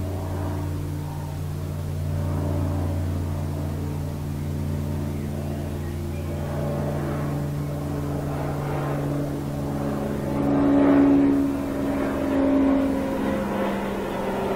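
Propeller-driven airplane droning overhead, heard from inside a room. Its engine tone holds several steady pitches that shift as it passes, and it is loudest about eleven seconds in.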